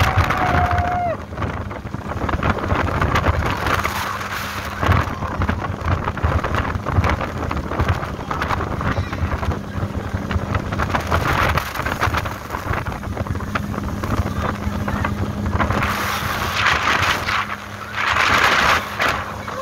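Sea Ray motorboat's engine running steadily under way, the hull pushing through choppy water, with wind buffeting the microphone and louder rushes of wind and spray near the end.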